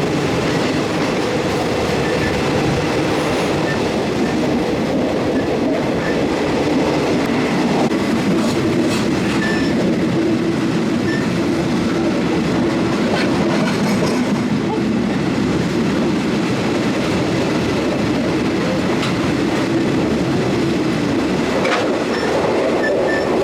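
Passenger train running at speed: a loud, steady rumble of wheels on the rails, with a few scattered clicks and knocks from the track.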